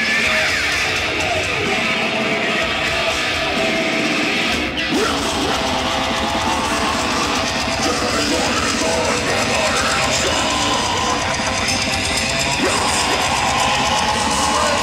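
Heavy metal music with electric guitar.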